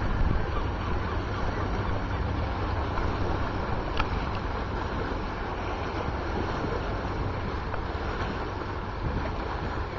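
Wind buffeting the microphone as a steady low rumble, over the wash of a ship's wake rippling in against the shoreline rocks. One short sharp click about four seconds in.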